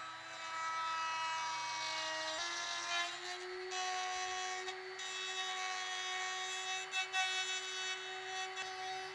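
Electric power tool working wood, its motor whining steadily; the pitch shifts down about two and a half seconds in, as the tool takes up load, then holds.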